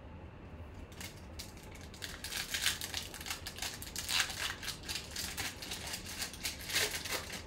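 Foil wrapper of a Bowman Chrome baseball card pack being torn open by hand, crinkling and crackling irregularly, starting about two seconds in and stopping just before the end.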